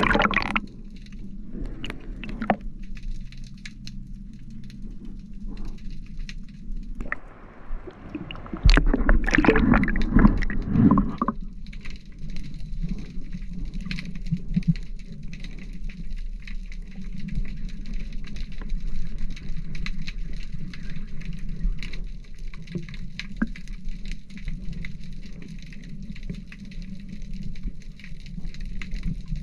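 Underwater sound picked up by an action camera in its housing: a steady low rumble with scattered faint ticks, and a louder rush of water and bubbles from about 7 to 11 seconds in.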